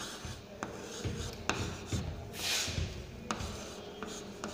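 Chalk writing numbers on a blackboard: scratchy strokes, with a few sharp taps as the chalk strikes the board.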